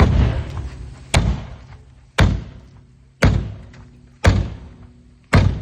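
Hammer striking a VW car's quarter panel six times, about once a second: heavy thuds, each dying away quickly. The panel is thickly covered in Bondo body filler.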